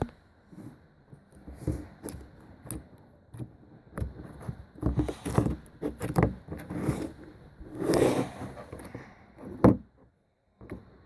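Irregular close-up handling noises of slime and its container: taps, clicks and scrapes, with a sharp knock near the end.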